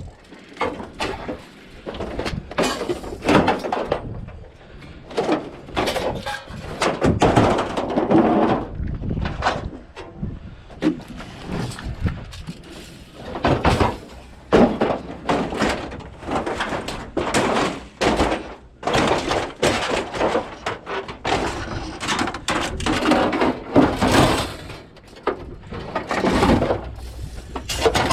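Scrap metal being handled: a long run of irregular clanks, knocks and crashes.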